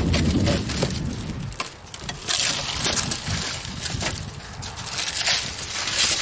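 Crunching, crackling scrape of shattered safety glass being cleared out of a car's side-window frame. A low rumble opens it, and thick, clicky crackling takes over from about two seconds in.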